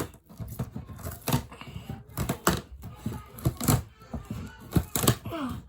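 Scissors cutting through packing tape and cardboard on a shipping box: an irregular run of clicks, snips and scrapes.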